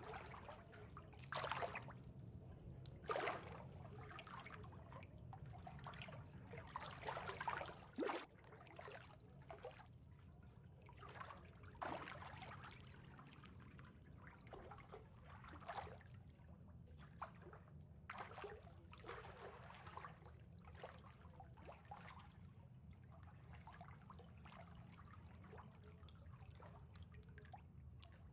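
Faint water trickling and lightly splashing at irregular moments, the strokes most frequent in the first few seconds, over a steady low rumble.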